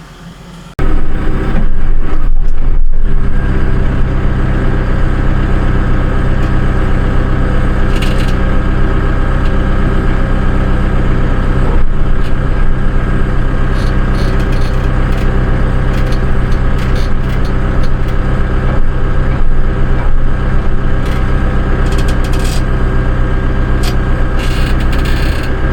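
A motor engine running loud and steady at a constant speed, with a few sharp knocks and cracks over it now and then.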